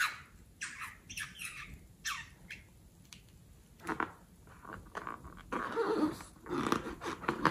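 Close-up handling sounds: short scratchy rubbing in the first half, then squeaky rubbing of a long pink rubber balloon as it is picked up and held, loudest towards the end.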